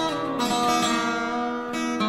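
Background music: plucked acoustic guitar playing a melody.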